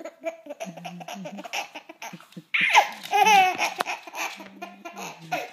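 Baby laughing in a string of short bursts, loudest and fullest about halfway through.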